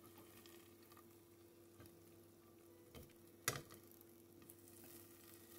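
Near silence with a faint steady hum, broken by two short clicks about three seconds in, the second sharper and louder. The clicks are a kitchen utensil knocking against the Ninja air fryer basket as fried cheese sticks are lifted out.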